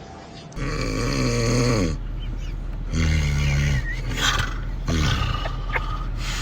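Loud snoring: three rough snores with a pitched, growling tone. The first lasts about a second and a half and falls in pitch as it ends; the last is short.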